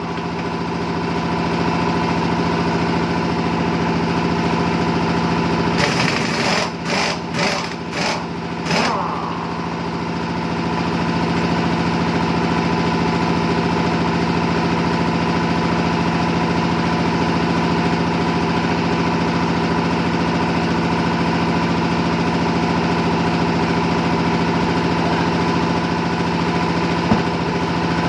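An engine running steadily at an even speed, with a handful of short sharp hissing or rattling bursts about six to nine seconds in.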